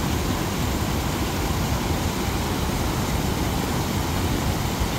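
Steady rush of river water pouring over a weir, an even noise heaviest in the low end, with no breaks.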